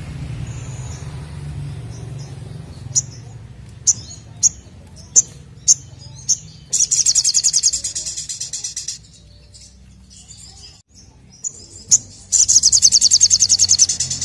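Male olive-backed sunbird singing: a string of sharp, high single chirps, then a loud, fast trill of rapidly repeated notes lasting about two seconds, and after a short pause a second such trill near the end. A low steady hum sits underneath in the first half.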